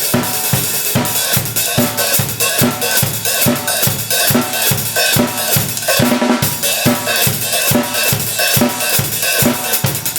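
Drum kit groove showcasing a pair of Zildjian 13-inch A Custom Mastersound hi-hats: steady hi-hat strokes over regular kick and snare hits, about three drum strokes a second.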